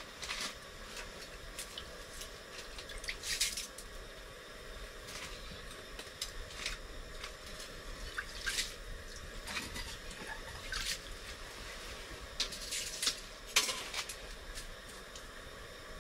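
Irregular small drips and clicks over a steady hiss, with a wet, dripping quality, as of water dripping at an ice-fishing hole.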